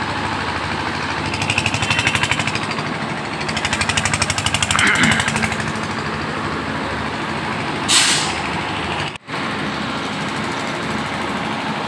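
Construction machinery engine running steadily with a rapid pulsing beat, driving the pump that sends mixed concrete through a pipeline into a wall. A short sharp hiss about eight seconds in.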